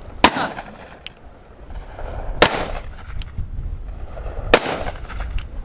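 Three gunshots about two seconds apart, each a sharp crack with a short ringing tail, with faint high pings in between.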